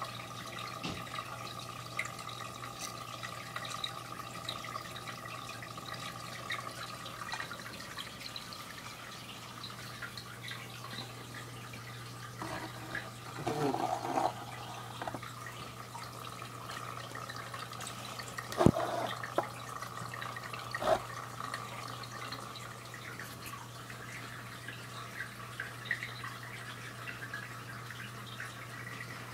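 Aquarium water trickling steadily over a low, constant hum. A sharp knock comes about two-thirds of the way through, with a softer tap shortly after.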